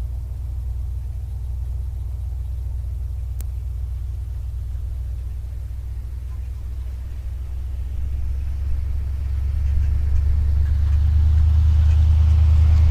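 The big-block V8 and exhaust of a 1964 Dodge Custom 880 running with a steady low rumble, which gets louder from about eight seconds in.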